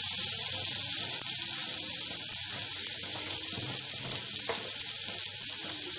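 Onion, tomato and ground spices sizzling in oil in a kadai: a curry masala being fried down (kosha) for the gravy, a steady hiss. A single faint tap comes about four and a half seconds in.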